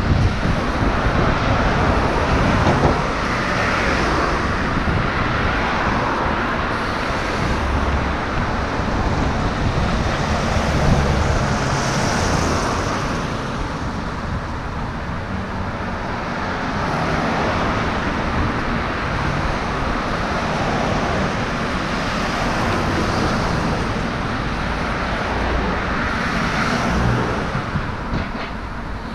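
City street traffic: cars passing on the road one after another, their engine and tyre noise swelling and fading in a steady rush.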